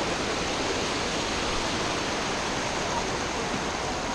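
Steady rush of a mountain waterfall and its stream running over the rocks close by.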